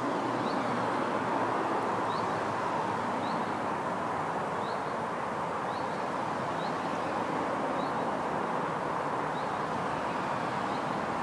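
Steady rush of road traffic crossing a nearby road bridge, with a small bird giving short, high, rising chirps about once a second.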